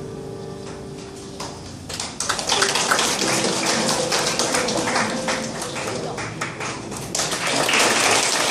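The last piano chord dies away, then from about two seconds in the audience claps steadily.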